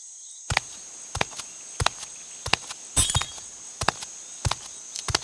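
Cartoon sound-effect footsteps at an even walking pace, about three steps every two seconds, with a brief clink about three seconds in. Crickets chirr steadily underneath.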